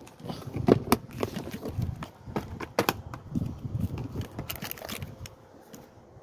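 Handling noise as a glue tube and small tools are picked up and moved about on a wooden bench: irregular clicks, taps and rustling.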